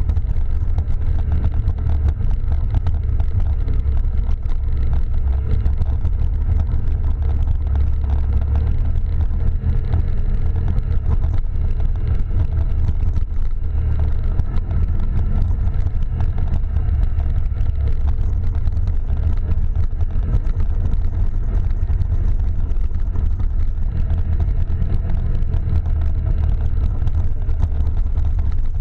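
Quad bike (ATV) engine running steadily while being ridden, a continuous low drone with no break.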